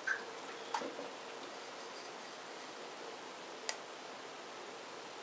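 Faint clicks and rustling of fingers picking gills and innards out of a crab's opened shell: two small sharp clicks, one just under a second in and one about two-thirds of the way through, over a low steady hiss.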